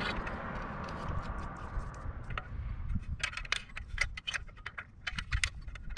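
Small quick clicks and rattles of hands handling a light bulb, lamp socket and wire connectors, sparse at first and coming thick and fast in the second half, over a low steady rumble.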